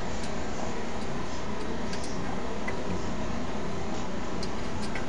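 A few light, irregular metallic ticks from hand tools working on a car's rear brake caliper carrier, over a steady background hiss.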